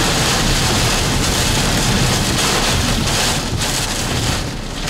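Hurricane wind and heavy rain: a steady, loud roar of wind-driven rain with a rumbling, gusty low end, easing a little in the last second or so.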